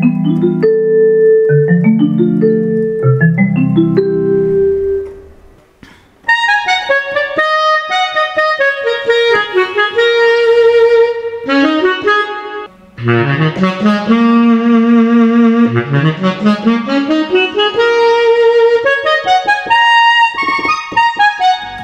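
Roland E-X50 arranger keyboard played live. It starts with chords on a piano tone that die away. About six seconds in it switches to a melody on the keyboard's "Band Clarinet" voice, with notes held out and two upward swoops in pitch in the second half.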